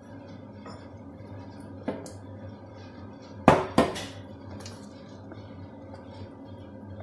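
A ceramic coffee cup clattering as it is handled at an espresso machine: a light clink about two seconds in, then two sharp knocks close together a little past halfway, and a fainter one just after.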